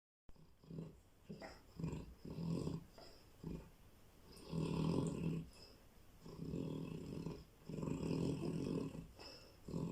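Cane Corso dog snoring: a snore on each breath, each lasting up to about a second, with short quieter gaps between.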